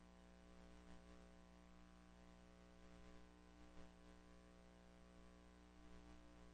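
Near silence: a faint, steady electrical mains hum with hiss, the background noise of a worn VHS copy of a silent home movie.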